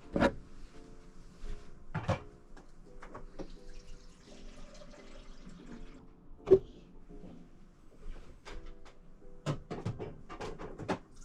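Kitchen tap running water into a shaker or cup, with several sharp knocks and clinks of containers being handled; the loudest knock comes about six and a half seconds in, and a quick run of them comes near the end.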